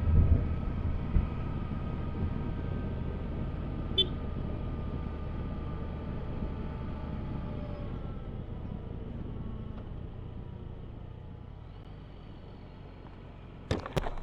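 Yamaha Tracer 900's three-cylinder engine running under way over a low road and wind rumble. The engine note eases down slowly and the sound grows gradually quieter. A few sharp clicks come near the end.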